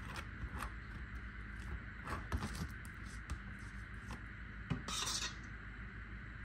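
Metal spoon clinking and scraping lightly as chocolate filling is spread over a wafer sheet, with scattered small taps and a brief louder scrape about five seconds in.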